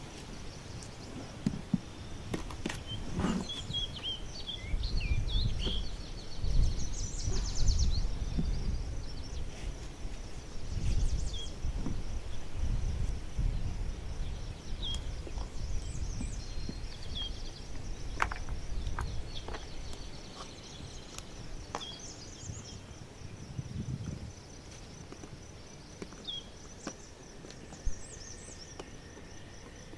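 Outdoor ambience of birds chirping, with low rumbling gusts of wind on the microphone in the first half. A few sharp clicks and knocks come from the chainsaw and oil jug being handled, the loudest near the end.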